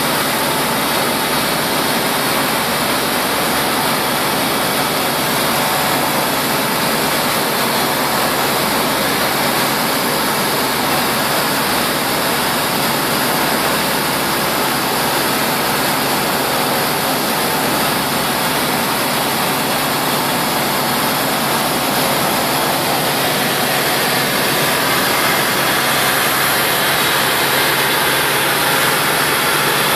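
Steady engine and propeller drone mixed with rushing airflow, heard inside the cabin of a Tecnam P92 ultralight in level flight.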